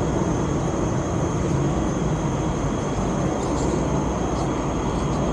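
Steady rushing background noise with a low hum underneath and a few faint ticks, unchanging throughout.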